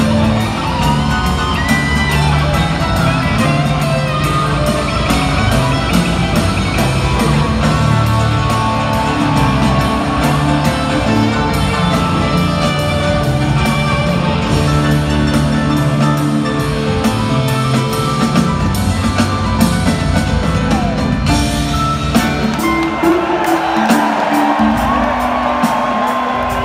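Rock band playing live in an arena, guitar, keyboards and drums, heard from the audience in the stands. The bass and drums drop away briefly near the end.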